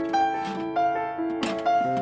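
Background piano music with held notes, with a few short clicks over it, the sharpest about one and a half seconds in.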